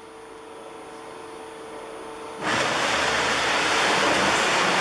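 LVD Delta 1250 LB CNC turret punch press running: a steady hum with a faint held tone grows slowly louder, then about halfway through a loud, even rushing noise cuts in suddenly and holds.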